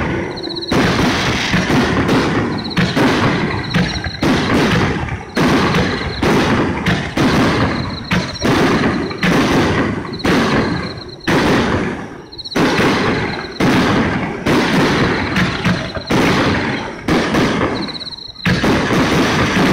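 Fireworks going off in a dense barrage of loud booms and bangs, one after another, with a brief lull near the end.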